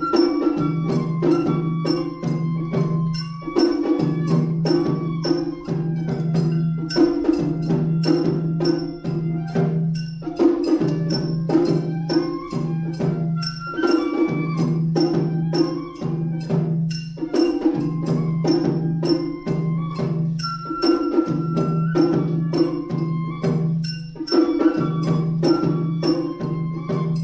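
Funabashi-style matsuri bayashi (Japanese festival music): a shinobue bamboo flute plays a melody over shime-daiko drums struck in a steady, repeating rhythm.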